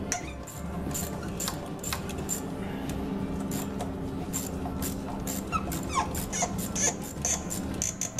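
Seized glow plug in a BMW N47 diesel cylinder head being worked back and forth with a wrench, its threads creaking and clicking with each turn. There are a few short squeaks about two-thirds of the way in. The plug is being gradually freed, turning a little further with each unthreading and threading movement.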